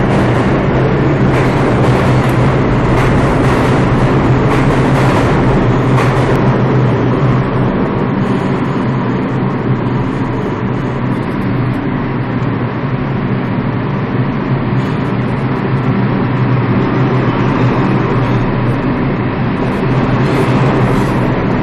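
R142 subway train departing a station platform and accelerating past with a loud, steady running noise.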